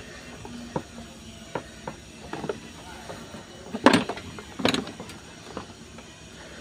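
Hands working on the drive belt and pulleys behind a dump truck engine's plastic cooling fan: scattered knocks and clicks, then two louder scraping clunks around four and nearly five seconds in.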